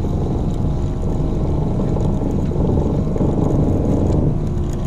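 Boat engine running steadily with a low, even rumble.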